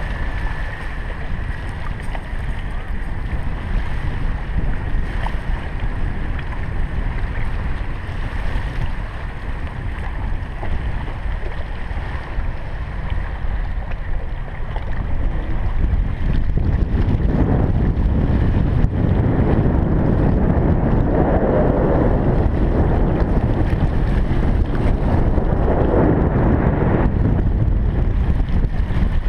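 Wind buffeting the camera microphone at the water's edge, a steady rumbling rush that grows stronger about halfway through.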